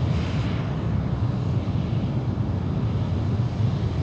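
Space Shuttle Main Engine, a liquid-hydrogen and liquid-oxygen rocket engine, firing at a steady level during a ground test: a continuous deep rumble, with a short hiss at the start.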